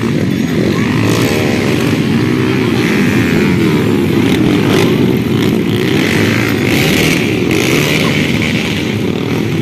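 Several small underbone motorcycle engines running and revving on a dirt track, their pitch rising and falling as riders throttle up and ease off.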